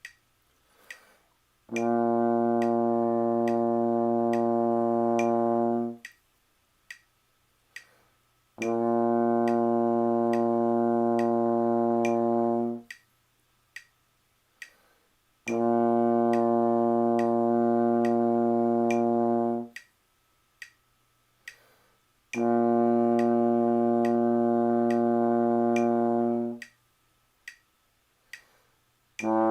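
Trombone playing four long held notes on the same low B flat, each about four seconds, in a breathe-and-sustain long-tone exercise. A metronome clicks steadily in the gaps between notes.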